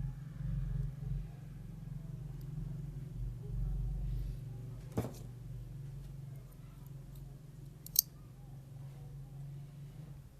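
Small clicks of electronic components and their wire leads being handled on a perfboard, with two sharper clicks about five and eight seconds in, the second the loudest, over a steady low hum.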